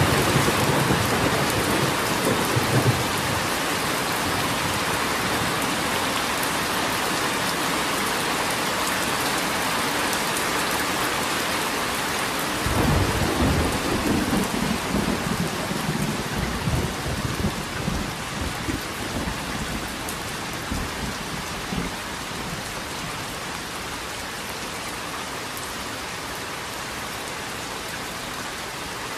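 Steady rain falling, with thunder rumbling low: a short rumble at the start, then a longer roll starting about thirteen seconds in that dies away over the next several seconds.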